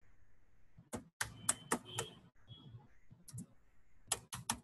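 Computer keyboard being typed on: a string of sharp, uneven key clicks in small groups with short pauses between them.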